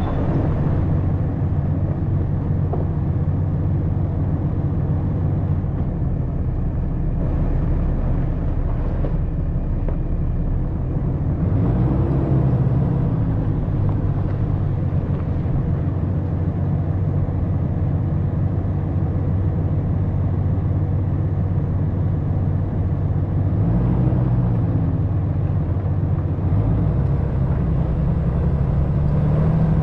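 Dodge Ram 3500 pickup's engine running as the truck drives along a dirt road. The engine note rises briefly about twelve seconds in, again about halfway through, and once more near the end.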